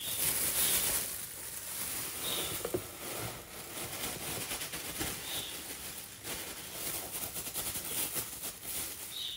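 Thin plastic bag crinkling and rustling as it is shaken and tipped, with loose red pepper flakes pattering into a plastic container.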